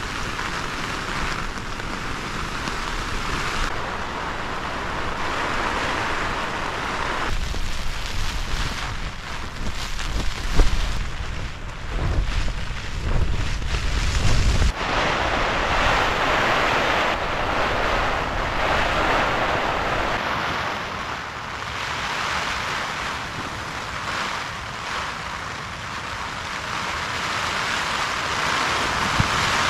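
Squally wind and rain on a tent, the fabric being buffeted. From about 7 to 15 seconds in, heavy gusts rumble on the microphone.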